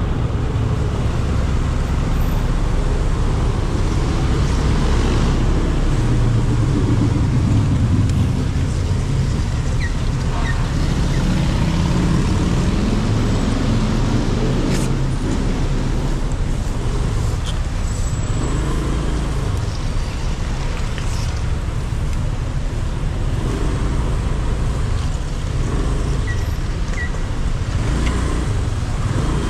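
Point-of-view motorbike ride in heavy city traffic: the bike's engine running under the rider, its pitch rising as it accelerates around the middle, over steady road and traffic noise from the surrounding cars and motorbikes.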